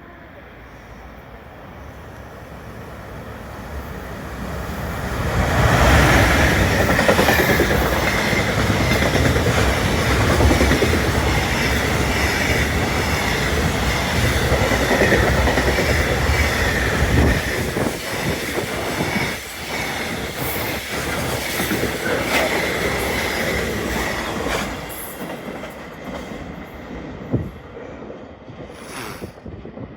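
EF210 electric locomotive hauling a freight train through a station without stopping. The sound builds over a few seconds into a long run of wagons clattering over the rail joints with a steady high whine, then fades away. A short sharp sound comes near the end.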